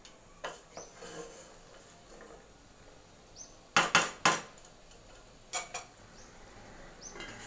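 A black spatula stirring chicken pieces in a stainless-steel pot, knocking and scraping against the metal. The loudest are three sharp knocks close together a little before four seconds in, with lighter ones before and after.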